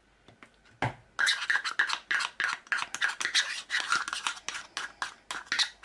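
Metal spoon scraping syrup out of a plastic measuring cup: a knock about a second in, then a quick run of short scraping strokes, several a second.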